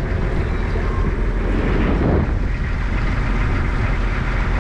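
A 1970s cabin cruiser's engine running steadily under way, under an even rush of wind and water.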